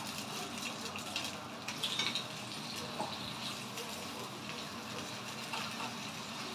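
Thin steaks frying in hot oil in a pan: a steady sizzle with a few light ticks.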